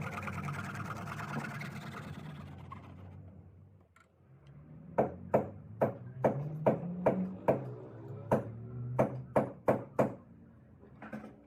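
Background music fading out, then a run of about a dozen sharp knocks or taps at uneven intervals over a low hum.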